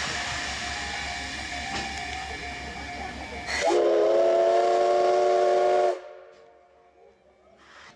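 C11 steam locomotive standing with steam hissing steadily, then its steam whistle blows one loud blast of about two seconds that slides up at the start and cuts off sharply.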